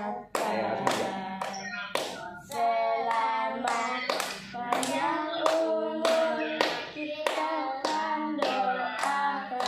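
A group singing a birthday song together, with hand clapping in time at about two claps a second.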